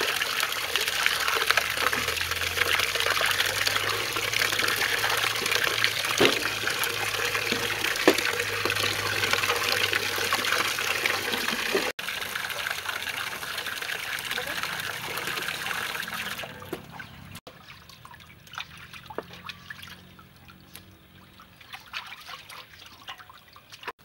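Water splashing and running as hands wash raw chicken wings in a metal basin of water, with a tap running into it. About two-thirds of the way in the water sound stops, leaving only faint scattered clicks.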